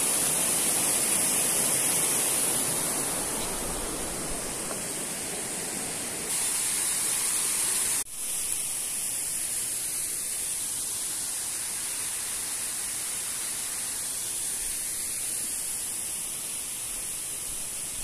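Steady rushing of falling water from a waterfall. It breaks off sharply about eight seconds in and comes back quieter.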